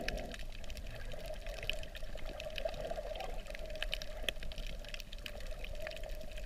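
Underwater sound over a coral reef, recorded by a submerged camera: a muffled watery wash with a steady hum and many faint, scattered clicks.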